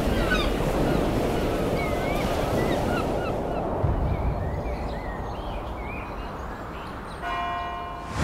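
Sea surf washing over rocks, with birds calling over it in short rising and falling cries. The surf slowly fades, and about seven seconds in a held musical tone comes in.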